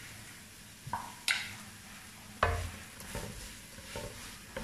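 Vegetables sizzling faintly as they sauté in a nonstick wok, stirred with a wooden spatula, with a few sharp knocks and scrapes of the spatula against the pan about a second in and again near the middle.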